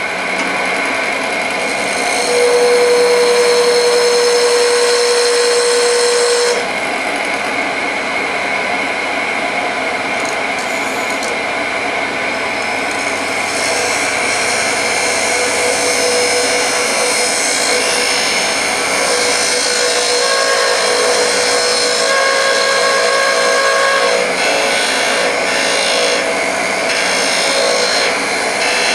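Wood lathe running with a turning tool cutting a small tenon into a spinning walnut blank. A steady whine holds throughout, and a clear pitched tone rings out for a few seconds early on and comes back fainter off and on later, as the tool bears on the wood.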